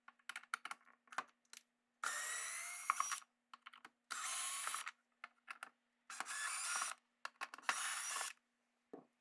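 Cordless power driver backing out the fender shell's screws in four short runs of about a second each, its motor pitch rising as it spins up, with small clicks of handling between runs.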